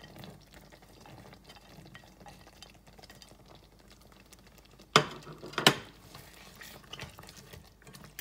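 Spatula scraping carrot sticks off a plate into a pot of chicken soup, then stirring them in. Two sharp clacks about five seconds in, roughly half a second apart, are the loudest sounds.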